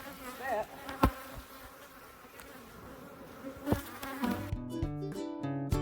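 Honeybees buzzing steadily in the air, with two sharp knocks, about a second in and near four seconds. Near the end, plucked-string music like a ukulele starts.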